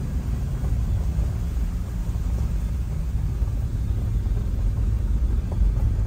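Steady low rumble of a vehicle driving slowly on a wet gravel road, heard from inside the cab: engine and tyre noise.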